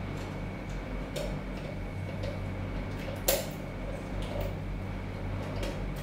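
Small metal clicks and clinks from a lockout hasp and laminated steel safety padlock being fitted by hand, with one sharper click about three seconds in.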